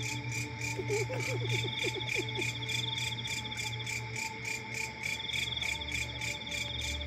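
Crickets and other night insects chirring steadily in a fast, even pulsing rhythm, with a few faint short chirps about a second in.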